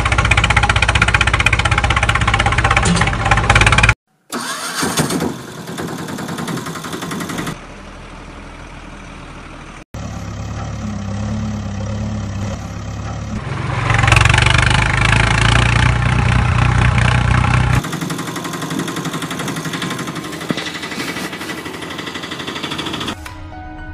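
Motor vehicle engine sounds, starting and running at idle, in segments that change abruptly every few seconds with brief dropouts; the loudest run is in the second half.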